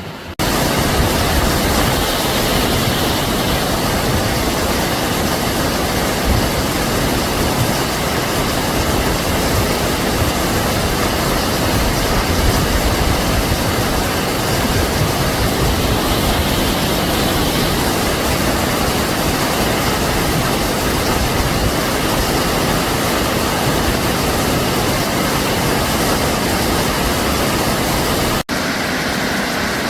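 Loud, steady rush of flowing river water, starting abruptly about half a second in, with a brief break near the end.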